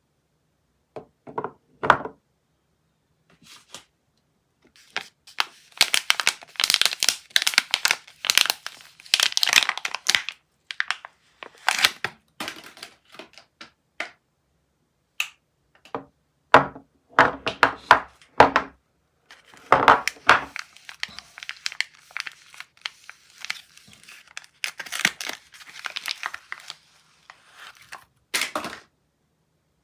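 Soap wrappers being torn and crinkled open by hand: bursts of crackling and tearing, broken by short pauses and a few sharp clicks and taps.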